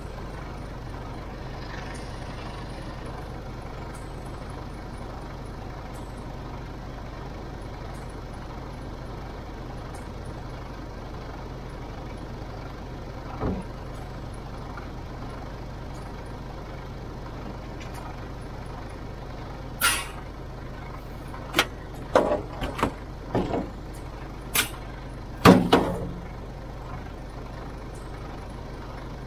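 Truck's diesel engine idling steadily while the trailer's air hoses and electrical lines are coupled up. A short knock about halfway through, then a run of sharp metallic clacks and short bursts between about 20 and 26 seconds in, the sound of the couplings being handled and fitted.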